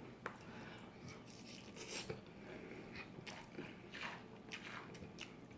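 Faint chewing and mouth sounds of a person eating fast food, with scattered soft clicks and smacks.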